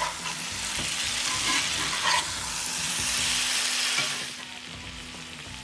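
Chicken pieces and chopped tomato sizzling in a hot cast-iron skillet as a spatula stirs them, with a few scrapes against the pan. The sizzle drops lower a little past four seconds in.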